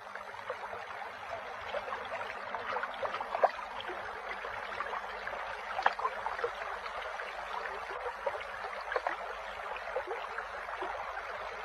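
A stream babbling and gurgling steadily, with small scattered plinks of water throughout.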